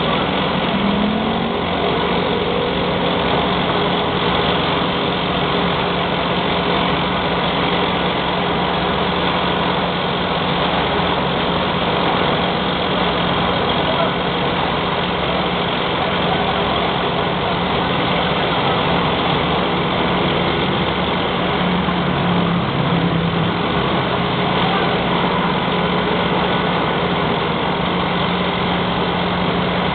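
Diesel engine of a mobile crane running steadily while the crane holds a steel column for installation, with a brief rise in pitch about a second in and small changes in pitch around 22 seconds in.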